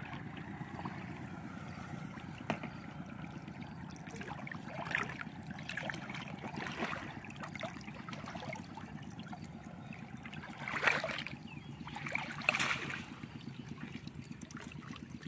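Water sloshing around people wading waist-deep, with a few louder splashes scattered through, the biggest about two-thirds of the way in.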